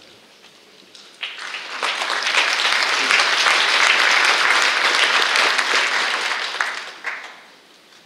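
Audience applauding. The clapping starts about a second in, swells quickly, and dies away near the end.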